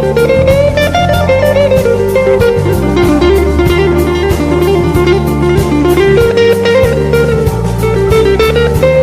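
Blues music: electric guitar playing a melody over bass and a steady drum beat.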